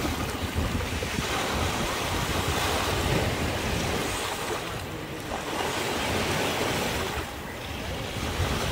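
Small sea waves breaking and washing over the shallows at the water's edge, a steady rushing surf, with wind buffeting the microphone as a low rumble.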